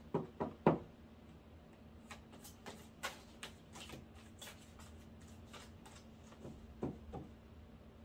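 A tarot deck being shuffled by hand: a run of quick, soft card snaps and slides, with a few louder taps in the first second.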